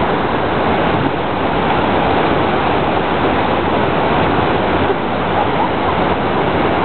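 Water pouring over a low dam spillway into the pool below: a steady, loud rush of falling water.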